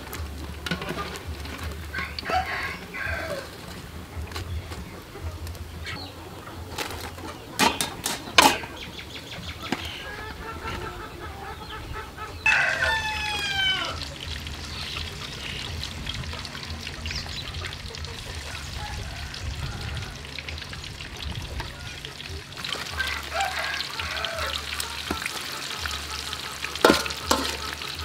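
Battered salmon fins deep-frying in a wok of oil, with a steady sizzle, and metal tongs and a wire strainer knocking against the wok a few times. Chickens cluck, and a rooster crows once about halfway through.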